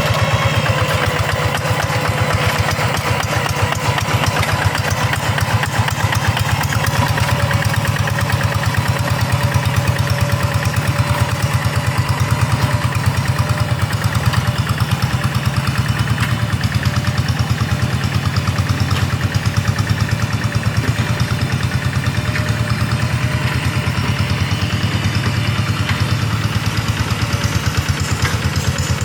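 Rice-paddy hand tractor's single-cylinder diesel engine running steadily with a fast, even chugging.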